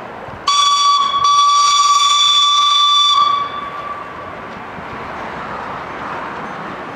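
Steam tram motor's whistle: one long blast on a single steady note, briefly broken just after it starts and stopping about three seconds in. A steady hiss from the passing tram follows.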